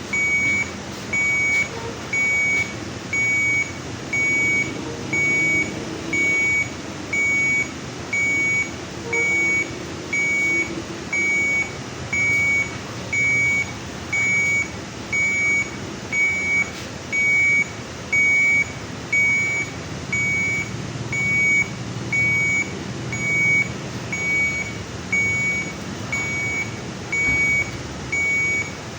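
Medical monitor alarm beeping in a steady, even rhythm, one short high beep about every 1.2 seconds, over a low background hum and rustle.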